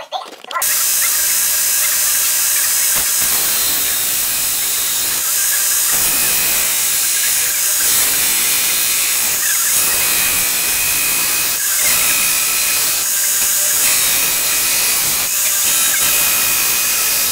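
Electric belt grinder running with a steel knife blade held flat against the moving belt, a loud, steady grinding hiss with faint whining tones. It starts abruptly about half a second in.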